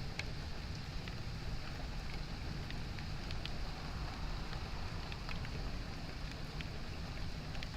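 Steady rain, with scattered sharp drop ticks over a continuous low rumble.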